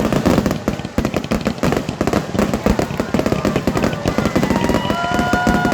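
Fireworks going off in a rapid, dense barrage of bangs and crackles. From about four and a half seconds in, several steady tones sound together over the bangs.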